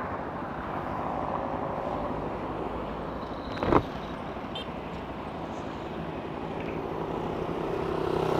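Honda CRF250L's single-cylinder four-stroke engine running while riding at low speed, mixed with road and wind noise. A single short, sharp knock comes about three and a half seconds in, and the sound grows louder near the end.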